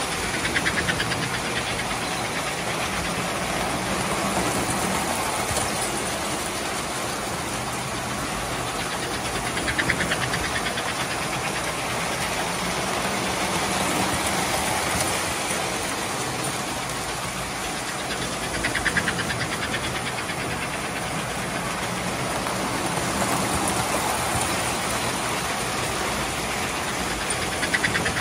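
Several three-rail tinplate toy trains running at once: a steady motor hum and wheel rumble on the tubular track, with a burst of fast clicking from the wheels over rail joints about every nine seconds as a train passes close by.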